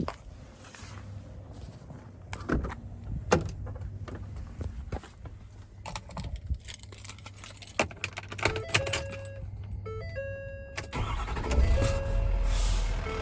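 Keys and sharp clicks, then a run of short electronic beeping tones, then a 6.7-litre Power Stroke V8 diesel starts about eleven seconds in and runs on at a steady idle.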